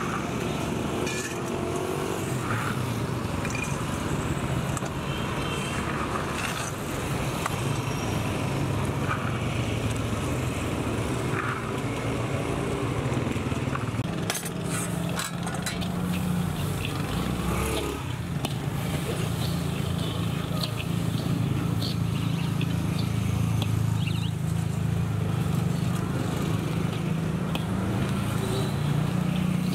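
Steady low engine drone of running motor traffic, rising a little about halfway through, with scattered light clicks and scrapes over it.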